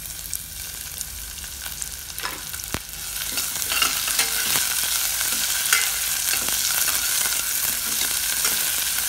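Chopped shallots and curry leaves frying in hot sesame oil in a stainless steel pressure cooker, sizzling as a metal ladle stirs them and clicks against the pot. The sizzle grows louder about three seconds in.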